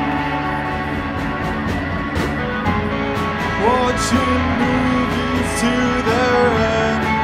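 Indie rock band playing: electric guitars, bass and drums, with a voice singing in the middle and near the end.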